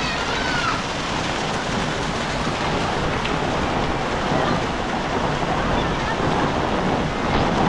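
Heavy rain pouring steadily, a dense, even hiss with no letup.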